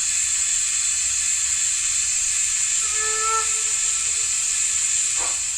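Steam locomotive sound from a Zimo MS990 model-train sound decoder played through a small speaker: a steady steam hiss, with a whistle sounding about three seconds in for roughly two seconds.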